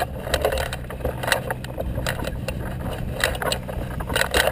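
Irregular clicks, rattles and scrapes of a hang glider's frame and fittings as it is walked across a field, over a low steady rumble.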